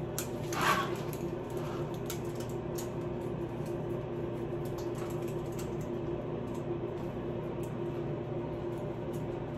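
A steady mechanical hum runs throughout. Over it there is a short scraping rustle under a second in, then scattered light clicks and taps from hand work on wallpaper around wall screws.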